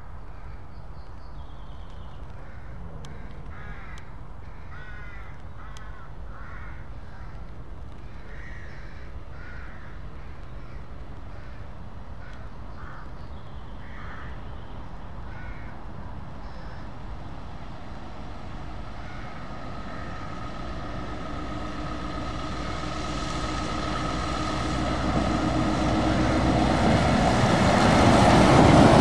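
Birds calling repeatedly over a low steady rumble during the first half. Then a Scania tractor unit hauling a loaded low-loader trailer approaches on a wet road, its engine with a steady whine and its tyres on the wet tarmac growing steadily louder until it passes close by near the end.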